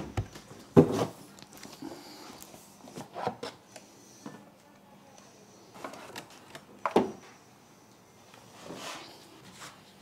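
Unboxing handling of a cardboard box and its packaging: light rustling with scattered clicks and knocks, the sharpest about a second in and again about seven seconds in.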